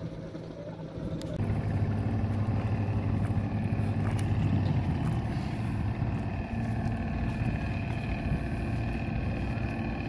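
An engine running at a steady speed, coming in abruptly a little over a second in, with a low hum and a faint high whine above it.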